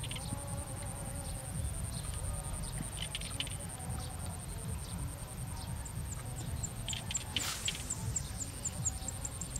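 Outdoor ambience: a steady high-pitched buzz over a low rumble, with scattered faint chirps and ticks, and a run of quick faint pulses near the end.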